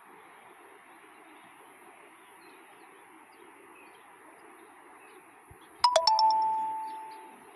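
A steady faint hiss, then a few sharp clicks and a bright two-tone chime near the end that rings out and fades over about a second and a half.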